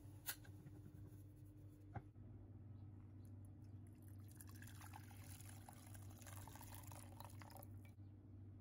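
Faint trickle of liquid lasting about five seconds, preceded by two light clicks.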